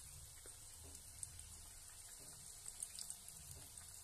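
Faint sizzling and crackling of cabbage, onion and flour batter balls deep-frying in hot oil, with small scattered pops.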